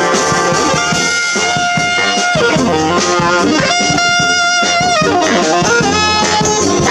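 A brass band playing live, with two long held chords in the middle among shorter moving notes.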